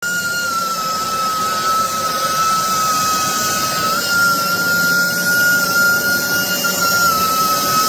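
BISSELL Revolution HydroSteam carpet cleaner's motor running steadily with a high whine that wavers slightly in pitch over a rushing hiss. It cuts in abruptly at full level.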